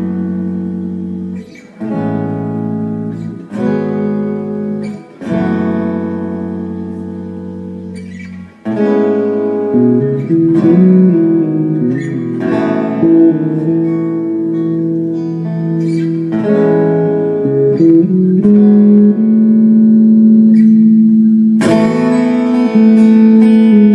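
Acoustic guitar played live. Chords are struck about every second and a half and left to ring, then from about nine seconds in the playing turns denser and continuous, with held notes, and grows louder.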